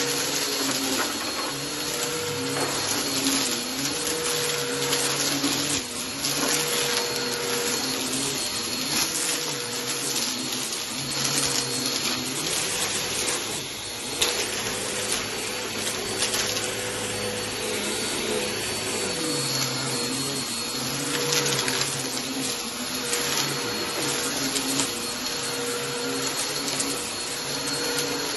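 Bissell Helix upright vacuum cleaner running on a shag rug, with a steady high motor whine and a lower hum that wavers every second or two. Frequent crackles and clicks throughout come from debris crunching up through the pile.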